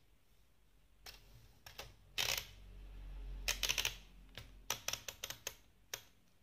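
abc 5000 typewriter (Adler Bielefeld) clacking: a string of irregular, sharp strikes begins about a second in, with a dense cluster of rapid strikes in the middle and a low rumble under them.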